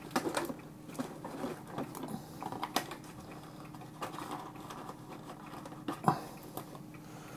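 Scattered light clicks and taps of small objects being handled and set down on a table, with a louder knock about six seconds in, over a faint steady hum.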